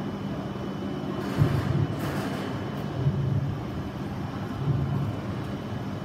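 Station platform ambience: a steady low rumble of trains and machinery that swells now and then, with a brief hiss about a second in.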